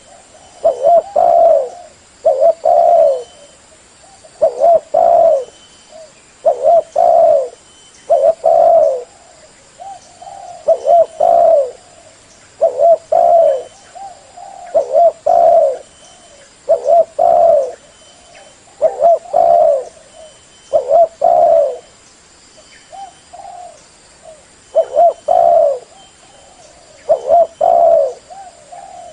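Spotted dove (derkuku) cooing loudly, a two-to-three-note coo phrase repeated about every two seconds.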